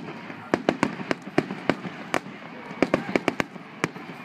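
Aerial fireworks going off in a rapid, irregular series of sharp bangs and pops, several a second.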